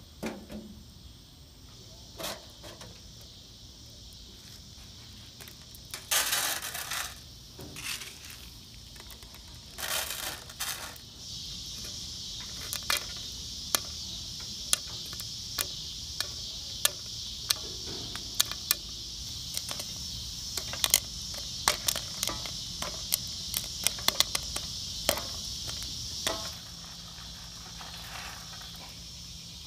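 Popcorn kernels popping inside a steel popcorn popper with a perforated lid, shaken over a wood fire: many sharp, scattered pops over a steady high hiss, which stop a few seconds before the end. Earlier, two short bursts of the kernels rattling in the pan.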